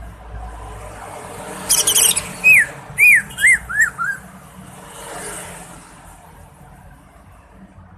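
Green leafbird (cucak ijo) singing: a quick high chatter, then five short slurred whistles, each falling in pitch, about two to four seconds in.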